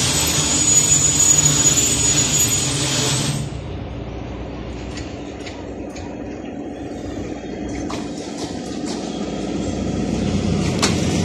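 Train running noise heard from aboard a moving train: a loud rushing rumble that drops off abruptly about three seconds in, leaving a quieter wheel-on-rail rumble with a few sharp clicks from the rails. Near the end a rising rumble comes in as a ZCU-20 diesel-electric locomotive approaches on the adjacent track.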